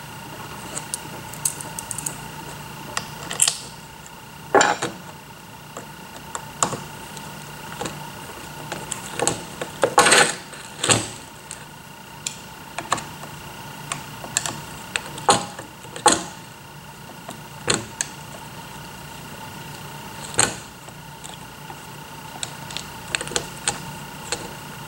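Irregular small clicks, scrapes and knocks of hand assembly: a screwdriver working screws into a plastic (HDPE) robot base plate, with parts and tools handled on a wooden bench. The fastening is being stubborn. A steady faint hum runs underneath, and the loudest knocks come about ten seconds in.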